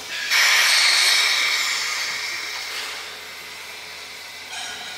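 Class C10 steam locomotive standing with its train, letting off a sudden hiss about a third of a second in that fades away over the next couple of seconds. A fainter hiss starts near the end.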